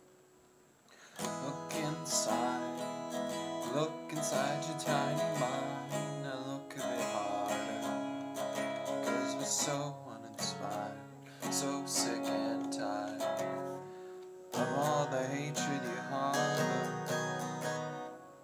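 Background music led by a strummed acoustic guitar, starting about a second in.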